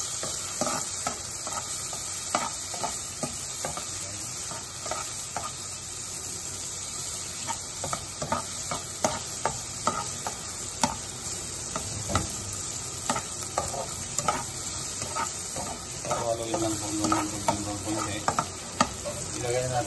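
Chopped garlic sizzling in hot oil in a pan while a slotted spatula stirs it, scraping and tapping against the pan many times. The garlic is being stirred until it browns.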